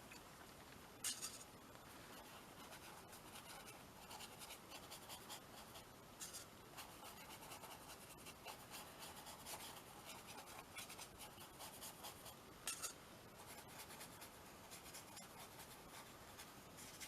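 Faint, repeated scratching and rubbing strokes of a drawing medium being worked onto a canvas, with two louder strokes about a second in and about three-quarters of the way through.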